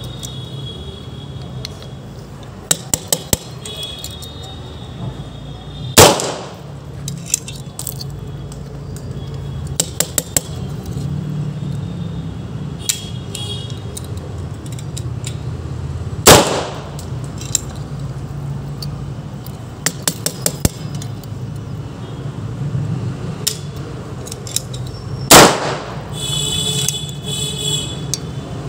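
Full-metal, Beretta-style cork gun firing three loud bangs about ten seconds apart, each with a short ringing tail. Light metallic clicks and clinks of the gun being handled come between the shots.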